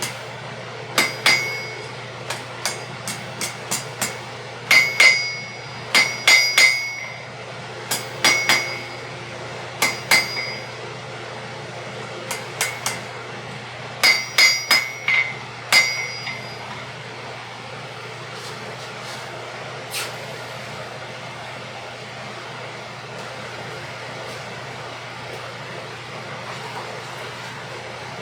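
Blacksmith's hammer striking hot iron stock on an anvil, bending it around the anvil edge to form a drive-in hook: sharp ringing blows in irregular clusters for about the first sixteen seconds. Then the hammering stops, with one more strike about twenty seconds in, leaving a steady low hum.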